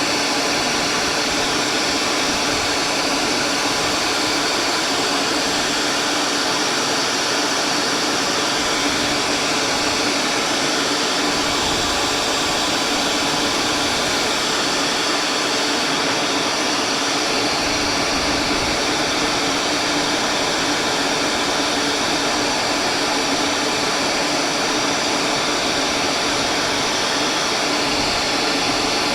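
An electric woodworking power tool running steadily, a constant whirring noise with a faint whine that holds one level throughout.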